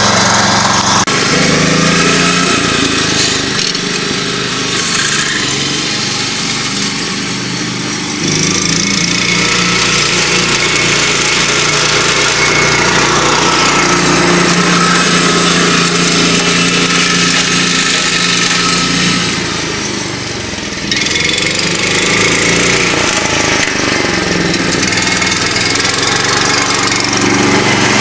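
Ford riding mower's Kohler K241 10 hp single-cylinder engine running, its note shifting in pitch several times as the throttle or load changes, and dipping in loudness a few seconds in and again about two-thirds through.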